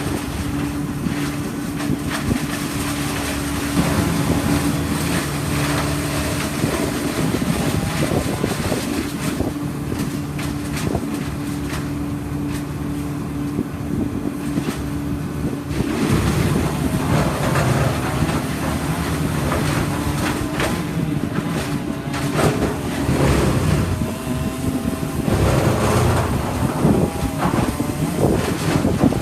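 An engine running steadily, with wind noise on the microphone; its pitch shifts and wavers in the second half.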